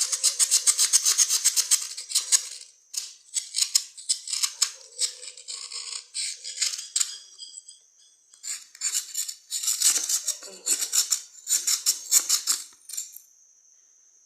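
Cuttlebone being scraped into powder: quick rasping strokes, several a second, in three runs with short pauses between them.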